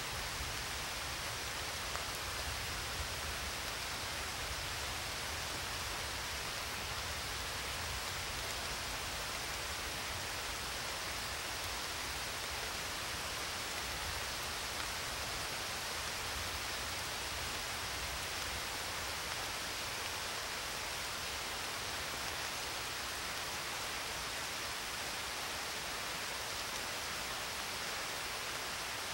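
Steady, even hissing noise like light rain or pink noise, unchanging throughout: the masking sound track of a subliminal affirmation recording.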